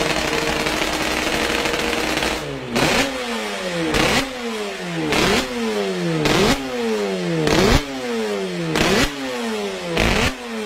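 Suzuki RG500 square-four two-stroke engine running steadily, then blipped sharply about seven times, roughly once a second, each rev snapping up and falling straight back down.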